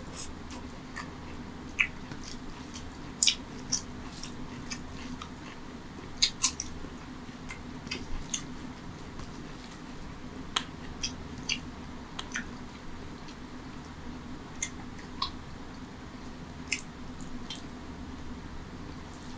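Close-miked eating by hand: wet chewing and lip smacks from mouthfuls of rice and mutton curry, with fingers mixing rice into the gravy. Irregular short smacks and clicks over a steady low hum.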